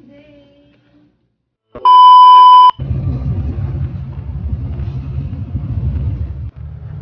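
A loud electronic beep lasting just under a second, then a coach heard from inside as it drives: a steady low engine and road rumble.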